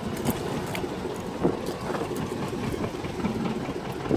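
A small fishing boat's engine idling steadily, with a few faint knocks.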